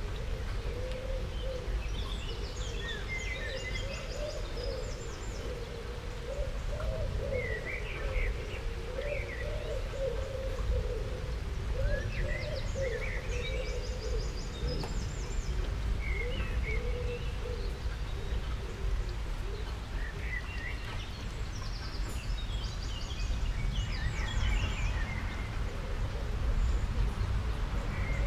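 Small birds chirping, with short trills every few seconds, over a steady low rumble and a faint wavering hum.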